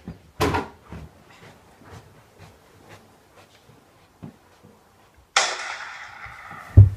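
A sudden bang about half a second in, faint clicks and shuffling, then a rush of rustling noise ending in a heavy low thump near the end: a person covered in a sheet falling to the floor.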